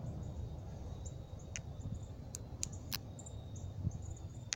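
Footsteps outdoors with a few sharp snaps and clicks of dry debris underfoot, over low wind rumble on the microphone.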